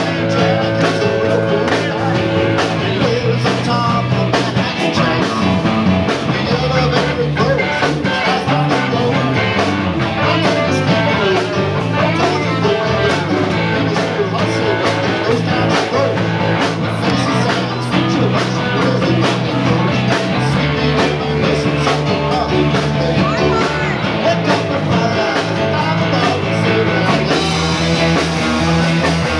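Live rock band playing a rock-and-roll number: electric guitars, bass guitar and a steady drum beat, with the frontman's vocals over the top.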